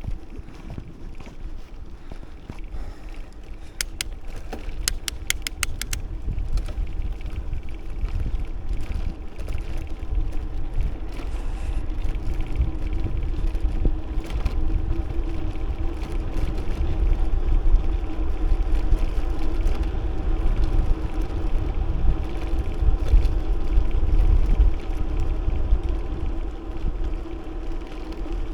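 Riding a bicycle: wind buffeting the camera microphone with tyre and road noise and a steady hum, getting louder after the first few seconds. A quick run of sharp clicks comes about four to six seconds in.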